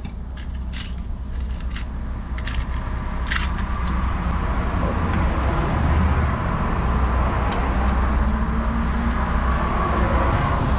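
Road traffic noise, a steady rush that grows louder over the first five seconds or so and then holds. A few light clicks of small parts being handled come in the first few seconds.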